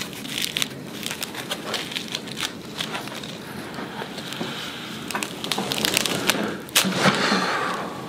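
Scattered clicks and crackling pops, then a sudden louder rush about seven seconds in as a head-harness traction strap is yanked to pull the spine into decompression.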